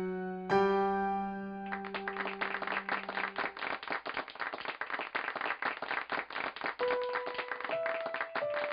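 A piano chord rings and fades, then many hands start clapping about two seconds in and keep on, irregular and dense. Near the end a slow melody of single piano notes comes in over the clapping.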